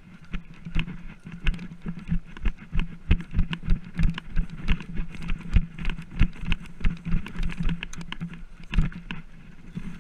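Running footsteps, about three a second, heard through a body-worn camera, with the thud of each stride and gear jostling.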